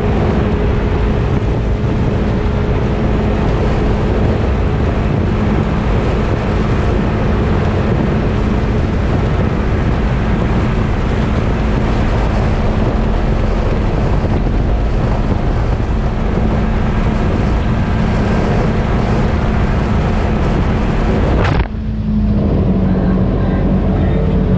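Polaris RZR XP 1000 side-by-side's twin-cylinder engine running steadily at cruising speed, with a constant rush of wind and gravel tyre noise over it. About three seconds before the end the sound cuts abruptly to a duller engine drone whose note steps lower.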